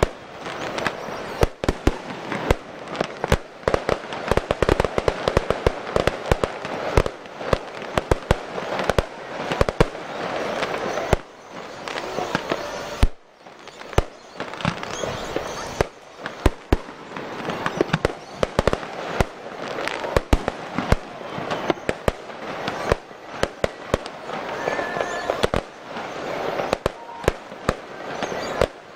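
Aerial fireworks exploding in a fast, irregular string of bangs and crackles, with a short lull about halfway through.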